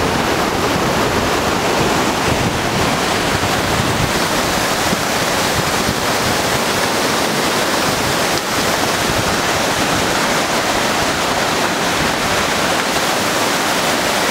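Waterfall rushing steadily as it pours into a rock pool.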